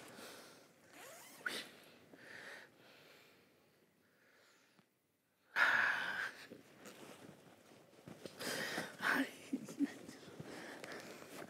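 Rummaging through a zippered cloth bag: fabric rustling and a zipper rasping, with short nasal breaths and snorts. The sounds stop for a moment about halfway through, then a sharp rasp starts them again.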